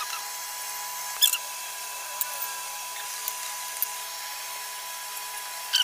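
A steady hiss with a faint high-pitched whine, broken by a few short clicks and rustles from a banana leaf and a spoon being handled, the loudest about a second in.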